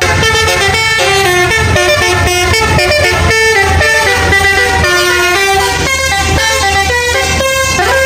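Tour bus's multi-tone 'telolet' air horn playing a fast tune of stepping notes without a break.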